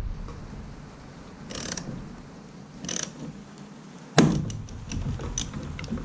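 Hand ratchet clicking as it turns the centre bolt of a steering wheel puller on a Ford E-450 steering wheel, with a loud sharp pop about four seconds in. The pop is the wheel breaking free of the steering column shaft.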